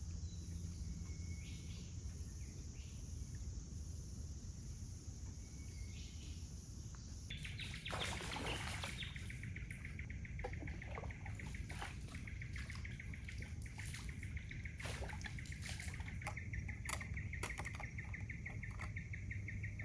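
Faint bush ambience: a steady high hiss gives way about seven seconds in to a fast-pulsing, high-pitched wildlife trill that keeps going, with scattered soft clicks.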